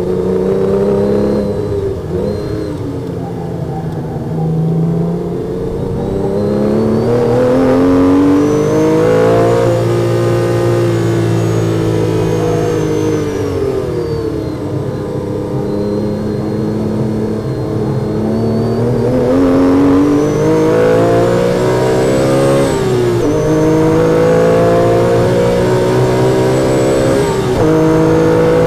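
Porsche 997 GT3's flat-six engine heard from inside the cabin at racing pace: revs climb under full throttle, drop sharply at upshifts, fall away under braking and downshifts for the corners, then climb again. It is loud throughout.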